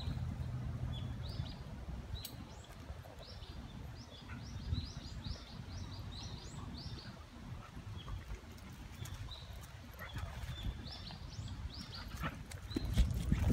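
Small birds chirping in quick runs of short, high, rising-and-falling calls, over a low rumble.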